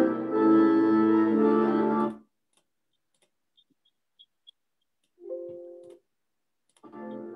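Hymn accompaniment on an organ-like keyboard, playing sustained chords that cut off suddenly after about two seconds. After a gap of near silence, a short held chord sounds for under a second, and the music resumes just before the end.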